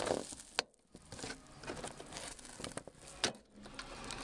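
Plastic interior trim being handled and worked loose from a car's ceiling, most likely the overhead map-light console: rustling and scraping with sharp clicks about half a second in and again a little past three seconds.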